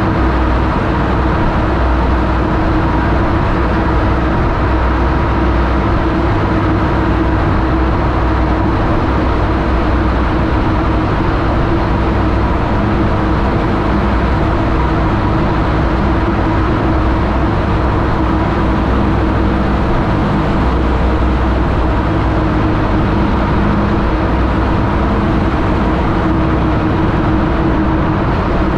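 TVS Apache 200's single-cylinder engine running steadily at cruising speed, with road and wind noise, inside a long road tunnel.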